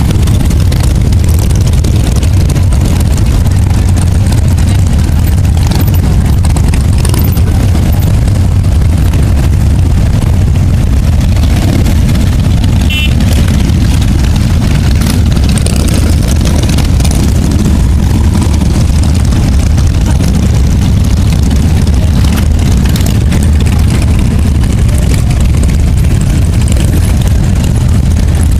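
A steady stream of cruiser and touring motorcycles riding past, their engines making a continuous loud, low rumble with no let-up.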